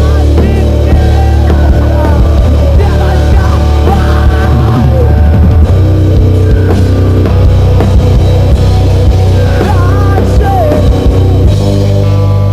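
Rock band playing live, heavy rock with distorted electric guitars, bass and a drum kit. Near the end it settles into a long held chord.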